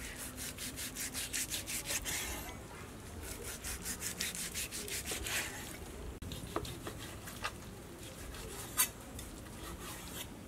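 Cleaver sawing slices off a cooked cow udder on a wooden chopping block. The blade goes back and forth through the meat in quick runs of several strokes a second, with pauses between them, and there is a sharper knock of the blade on the wood about nine seconds in.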